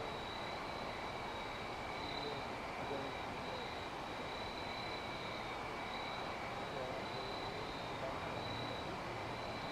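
Steady outdoor background: an even rushing noise with two steady high-pitched tones running through it.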